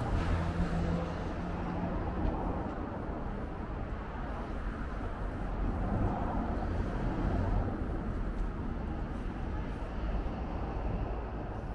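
City street ambience of steady road traffic: vehicles passing, with an engine hum standing out in the first couple of seconds.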